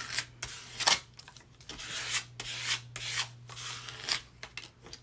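Paper being rubbed flat with a small hand-held smoothing tool, pressing down a freshly glued sheet: a run of short scraping strokes, about two or three a second, the loudest about a second in.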